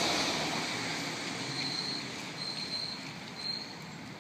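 A car passing on the street, its engine and tyre noise loudest at the start and fading away as it moves off.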